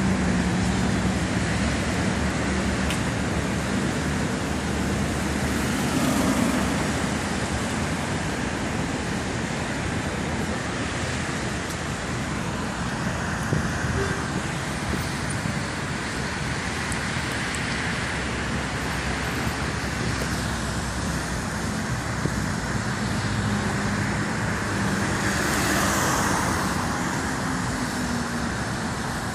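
Dense road traffic on a wet multi-lane road: a continuous wash of engines and tyre noise. One vehicle passes close near the end.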